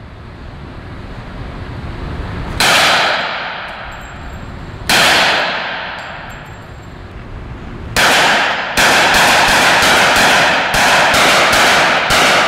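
Gunshots, each with a long echoing tail: two single shots a couple of seconds apart, another about eight seconds in, then a quick string of shots at about three a second over the last few seconds.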